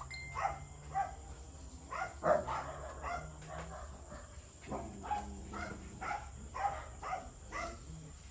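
A dog barking repeatedly in quick short barks, about two to three a second, with a brief pause about halfway through.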